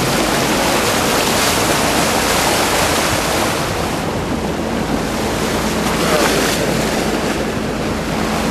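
Water rushing and splashing along the bow of a moving boat, with wind buffeting the microphone.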